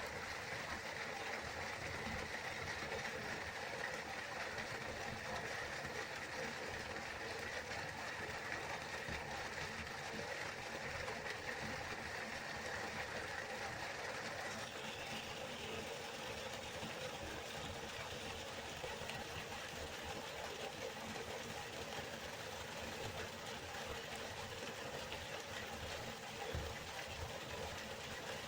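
River water flowing steadily, a continuous rushing. About halfway through, the rush turns brighter and higher-pitched.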